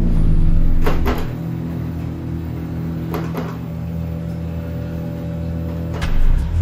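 A dark, sustained music drone with two sharp double bangs, one about a second in and one about three seconds in, like door or cupboard knocks.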